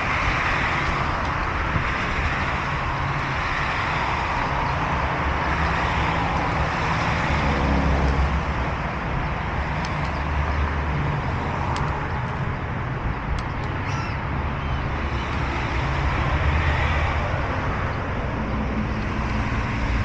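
Steady road traffic from cars passing one after another on a multi-lane road, swelling and fading as each goes by, over a low engine and tyre rumble.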